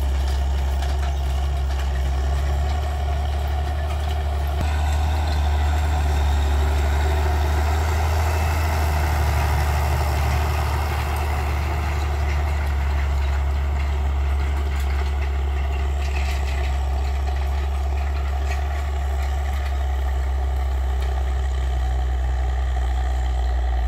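Zetor 16145 tractor's six-cylinder turbo diesel running steadily under load as it pulls a field cultivator: a deep, even drone that swells slightly as the tractor comes closest.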